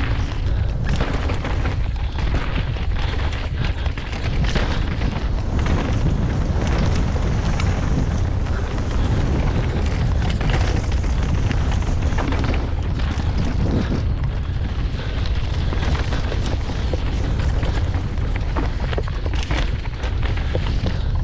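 Wind buffeting a helmet-mounted camera's microphone on a fast downhill mountain-bike run, a steady heavy rumble. Frequent sharp clatters and knocks of the bike running over rocks and roots come through it.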